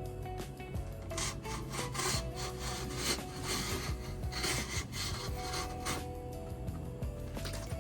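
Cardboard and plastic packaging scraped and rubbed in several separate strokes, as pool kit parts are pulled from a cardboard box, over quiet background music.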